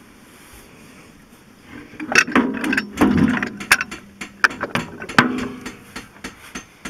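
Metal brake housing of an International 444 tractor being worked by hand onto the brake shaft: a busy run of clanks, knocks and scrapes starting about two seconds in, then a few lighter clicks near the end.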